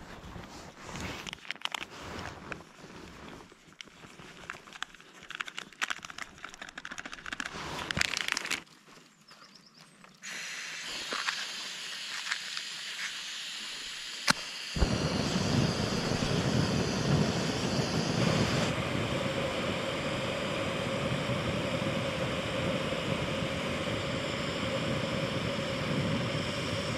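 Crinkling and rustling as a coffee sachet and gear are handled, then a sharp click and a Jetboil camping stove's gas burner lighting about halfway through. The burner then runs with a steady rushing sound.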